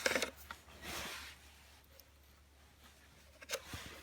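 An e-bike battery being slid into a homemade adapter. A few sharp clicks at the start, a short scraping slide about a second in, and another knock near the end.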